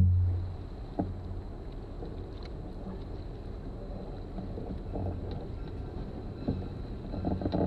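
Canoe on a river: a steady low rumble of water and boat noise, with a few light knocks on the canoe, one about a second in and another near the end.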